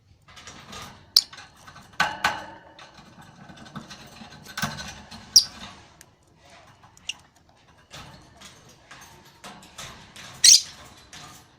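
Lovebird giving irregular short, sharp chirps and clicking sounds, a few of them loud and shrill.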